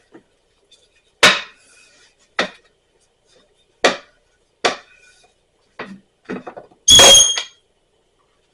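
Kitchen utensils and cookware knocking, about six separate sharp knocks spaced roughly a second apart, then a louder metallic clang with a brief ringing tone about seven seconds in.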